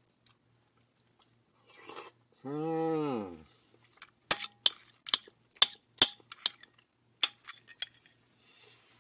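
Metal spoon clinking and scraping against a ceramic bowl and eggshell while scooping soft-boiled egg: about ten sharp clicks in the second half. Before them comes a short breathy sound, then a hummed "mmm" about a second long that rises and falls in pitch.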